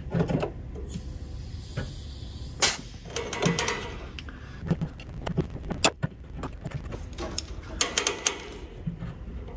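Air gun blown briefly into a fuel line that is still clogged, a short hiss about one and a half seconds in, among scattered clicks and scrapes of hand tools against the car's underside.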